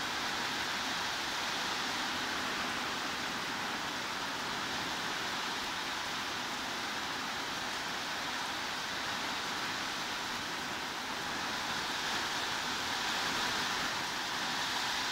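Steady heavy rain, an even hiss without separate drop sounds standing out, used as white noise.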